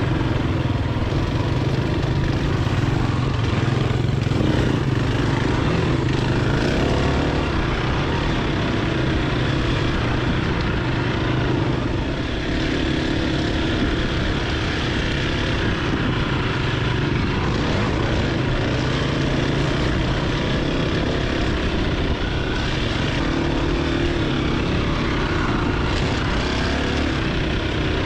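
Dirt bike engine running steadily while the bike is ridden along a trail, its engine note rising and falling a little as the rider works the throttle.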